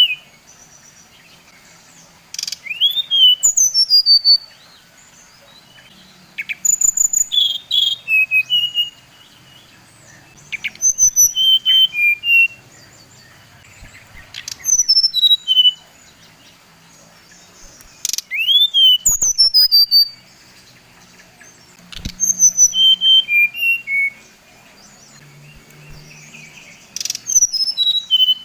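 Brown-chested jungle flycatcher (sikatan rimba dada coklat) singing: seven short phrases of clear, sliding whistled notes, one about every four seconds. A few sharp clicks fall between the phrases.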